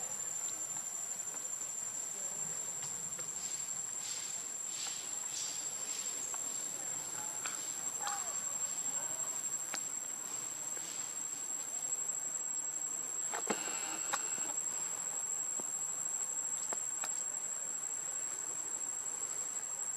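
Steady high-pitched insect drone, one unbroken tone throughout, with a few faint scattered sounds and one short, louder sound about two-thirds of the way through.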